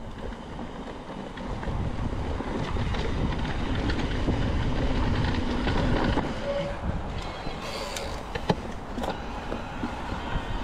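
Mountain bike being ridden on a dirt trail: a rumbling rush of wind and tyre noise that builds over the first few seconds, with scattered rattles and clicks from the bike and one sharper knock about two-thirds of the way through.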